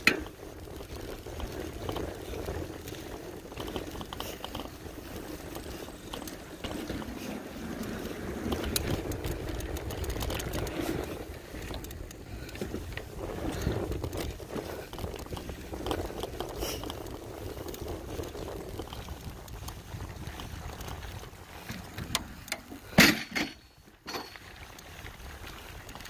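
Mountain bike rolling along a dirt trail: steady rough noise of knobby tyres on dirt, with wind on the microphone. A couple of sharp knocks about 23 seconds in are the loudest sound.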